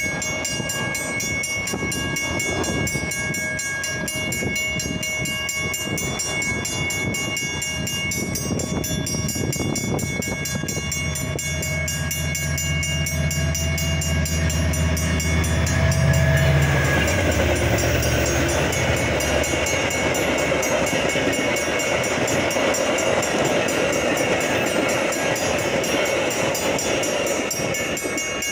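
Railroad crossing bells ringing steadily while a Metra commuter train passes through the crossing. The train's low drone swells from about ten seconds in and is loudest around sixteen seconds, giving way to a steady rush of wheels on the rails.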